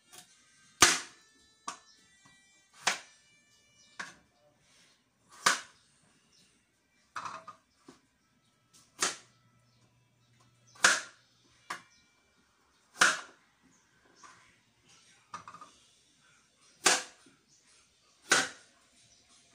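Kitchen knife chopping vegetables on a cutting board: single sharp chops every one to two seconds, about a dozen in all.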